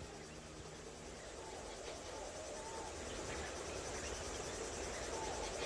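Crickets chirping steadily in a night ambience, a fast fine trill, with a few short gliding calls from another small animal scattered through it.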